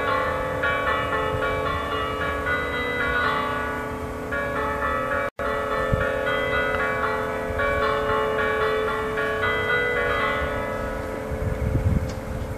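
Church bells ringing, several bells struck in quick shifting sequences that overlap and hang on, over a low rumble. The sound cuts out for an instant about five seconds in.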